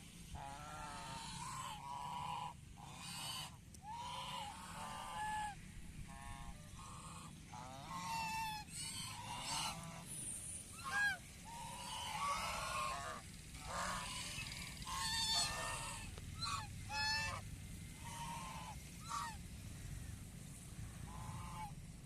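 Waterfowl honking: many short, repeated calls from several birds, often overlapping.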